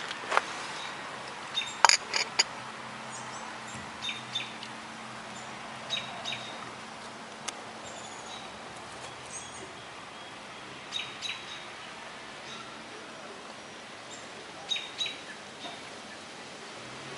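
Short high-pitched chirps, mostly in pairs a few seconds apart, over a faint low steady hum.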